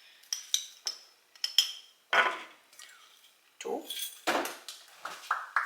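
A metal spoon clinking against a cup while spoonfuls of coffee are added, with several sharp clinks in the first two seconds, then a few duller scraping sounds.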